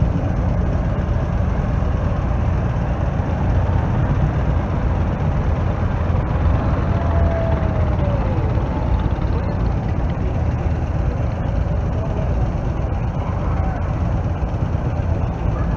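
Engine of a vintage open touring car running as it drives slowly past, over a steady low rumble of vehicle noise. A short falling tone sounds about seven seconds in.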